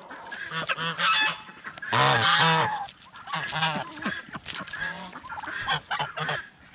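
Geese honking repeatedly, several calls in a row with the loudest and longest about two seconds in.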